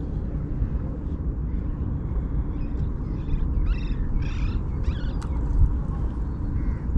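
Strong wind buffeting the microphone, a steady low rumble. Around the middle come a few short, wavering high-pitched animal calls.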